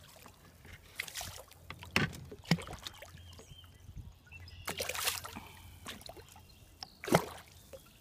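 A hooked bowfin (dogfish) thrashing at the water's surface: a run of sudden splashes, with a bigger one about five seconds in and the loudest near the end.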